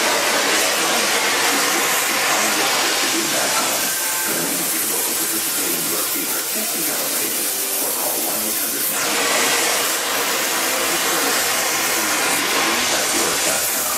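Colmonoy powder-brazing torch flame hissing steadily, the torch running while powder is brazed onto a cast-iron tractor axle.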